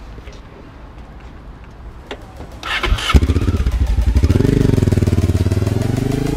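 Honda Africa Twin's V-twin engine starting: a brief burst of cranking, then the engine catches about three seconds in. It runs loud, revving up and down as the motorcycle pulls away.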